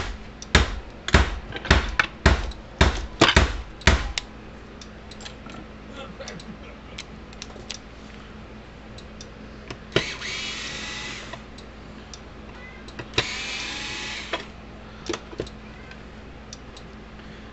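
The old solar charge regulator being worked off an electric fence charger by hand. A quick run of sharp knocks for the first few seconds gives way to light scattered clicks, then two short rasping bursts about a second long.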